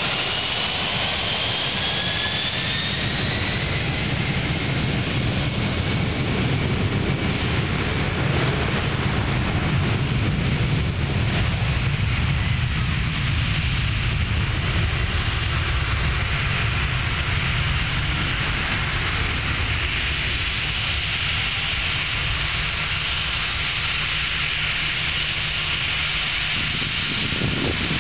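Boeing 757's twin jet engines spooling up to take-off thrust, a whine rising in pitch over the first few seconds, then running steadily at full power with a deep rumble and hiss as the airliner accelerates down the runway on its take-off roll.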